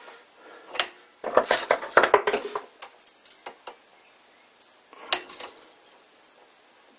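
Light metallic clicks and clinks from handling at the lathe's two center points: a burst of quick clicks about a second in, a few scattered ticks after it, and another short cluster near five seconds, as a thin steel strip is set pinched between the headstock and tailstock centers.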